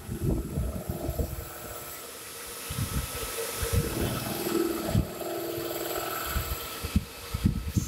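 Vertical machining centre milling a pocket in a piston: steady machine sound with thin high tones, over irregular low rumbles and thumps.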